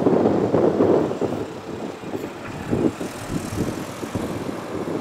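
Gusty wind buffeting the microphone, loudest in the first second and easing off after it. Under it is the low running of a Pacer diesel railbus passing in the distance.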